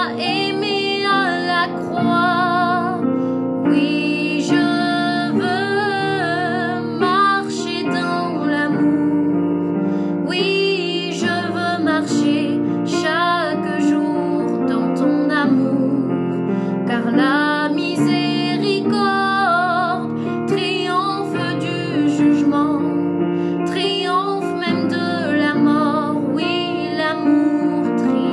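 A woman singing a French cantique (hymn) with wavering vibrato on held notes, over a keyboard accompaniment of held chords.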